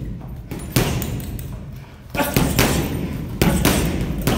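Strikes landing on a Fairtex heavy bag: several heavy thuds about a second apart, each a sudden smack that dies away quickly.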